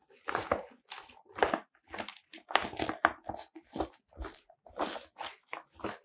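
Silver reflective softbox fabric rustling and crinkling as gloved hands pull and fold it, in about a dozen short, irregular bursts.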